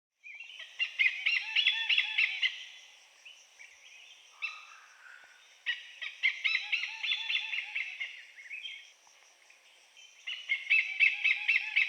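Small birds chirping busily: rapid overlapping chirps in three lively spells, with quieter chirping in between.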